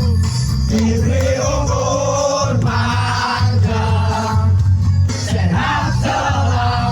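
Music: a song with a sung vocal line over a heavy, pulsing bass beat.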